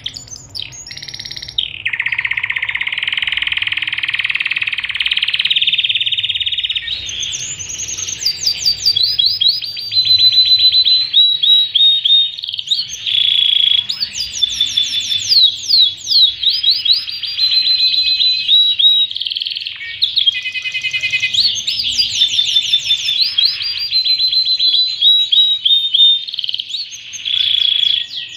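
Pied 'panda' domestic canary singing a long, varied song: a buzzy rolling trill for a few seconds near the start, then fast runs of high sweeping chirps and trills.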